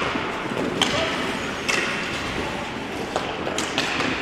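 Ice hockey play on a rink: a steady scrape of skates on ice with about five sharp clacks of sticks and puck, three of them close together near the end.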